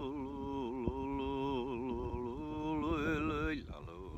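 A man's solo unaccompanied Sámi yoik (luohti): one voice holding long, wavering notes, sliding up in pitch about three seconds in, then going on more softly near the end.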